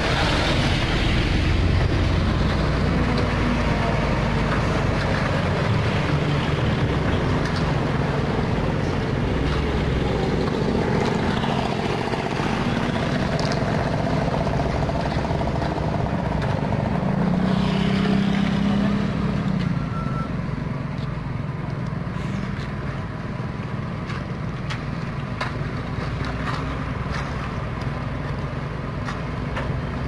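Heavy trucks' diesel engines running close by, a steady loud rumble that eases somewhat quieter about two-thirds of the way through.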